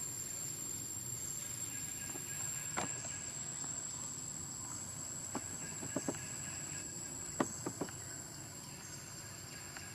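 Forest ambience with an insect's steady high-pitched buzz. A handful of sharp clicks break in, once about three seconds in and several more between five and eight seconds.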